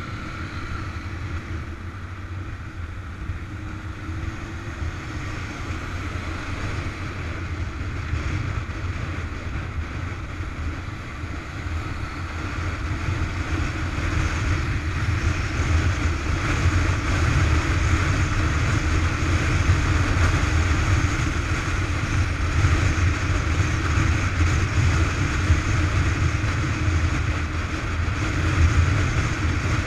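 Motorcycle engine running steadily under wind rush and road noise, heard on board while riding, growing louder about halfway through as the bike picks up speed.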